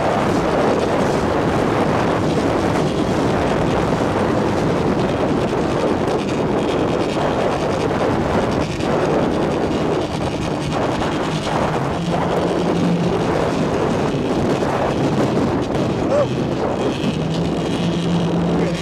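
Motorboat under way: a steady noise of wind and water against the hull, with the boat's engine droning underneath. A low steady hum grows clearer in the later seconds.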